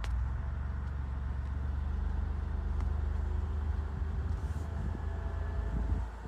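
Low rumble of a moving car heard from inside, with a fast, even flutter in it. This is the noise the driver suspects is a broken-off tyre pressure sensor flopping around inside a wheel rim.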